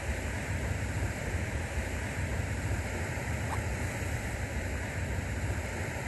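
Wind blowing across the microphone: a steady, even rush with no separate events.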